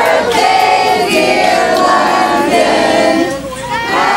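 A crowd singing together, with a short dip about three and a half seconds in.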